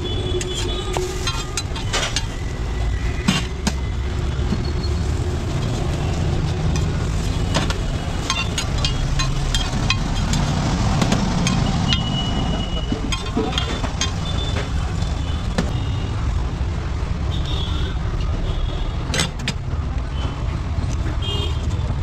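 Road traffic rumbling steadily, with scattered sharp clicks and scrapes from a metal spatula on an iron griddle.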